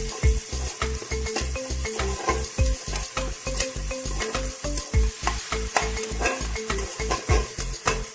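A steel spoon stirring and scraping chopped onions as they sizzle in hot oil in an aluminium pressure cooker, over background music with a steady beat.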